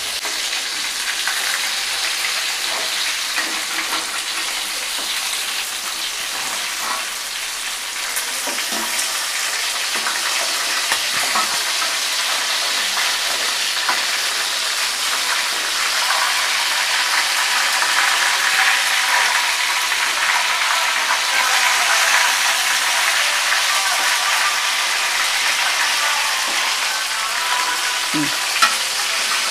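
Food frying in a pan, sizzling steadily, with a few light clicks as it is stirred.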